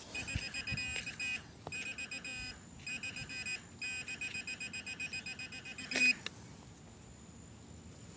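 Handheld metal-detecting pinpointer beeping in a rapid, high-pitched pulsing tone as it is probed through loosened soil, homing in on a buried metal target. The beeping comes in several runs with short breaks and stops about six seconds in.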